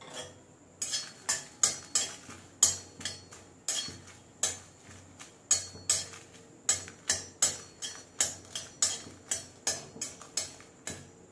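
Steel spatula knocking and scraping against a dry aluminium kadai while dry-roasting dried red chillies, about two to three sharp clinks a second after the first second.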